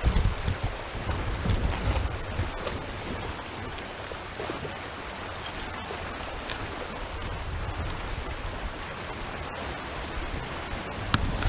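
Steady hiss of moving river water with wind rumbling on the microphone, heavier near the start and near the end.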